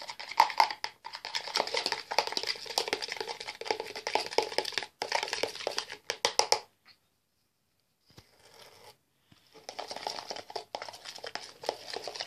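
Shaving gel being stirred and worked with a spoon in a plastic jug to make foam: a dense, sticky crackling that stops for about a second past the middle, then goes on more faintly.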